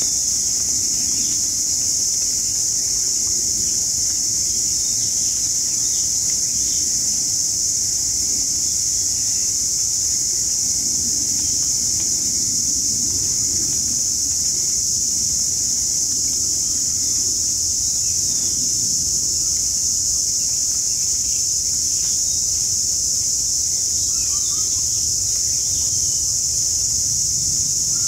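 Steady, high-pitched insect chorus, a continuous unbroken drone, over a low background rumble.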